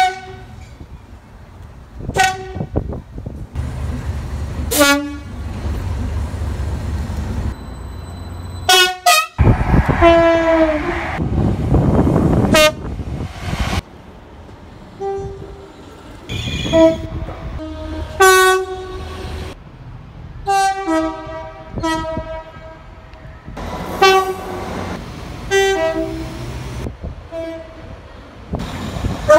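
British train horns: a string of short blasts, many as high-low pairs on two pitches, coming thick and fast in the second half. A longer blast comes about ten seconds in. A low rumble of rail and engine noise lies beneath in the first half.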